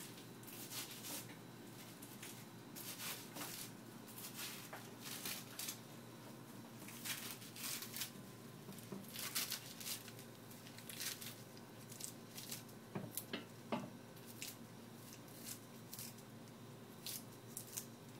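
Washed spinach leaves being torn apart by hand: irregular soft, crisp tearing and rustling of leaves, many short rips one after another.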